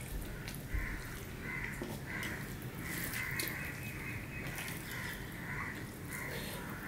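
A bird gives a run of harsh caws, about two a second, with one longer call about three seconds in. Under it, fingers mix rice and curry on a steel plate with small wet clicks.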